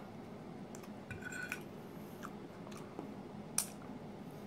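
Quiet chewing of a mouthful of pancake, with a few faint clicks of a metal fork and knife, one about a second in with a brief ring and a sharper one near the end.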